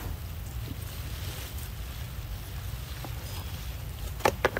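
Steady low rumble of wind buffeting the microphone, with two sharp clicks in quick succession near the end.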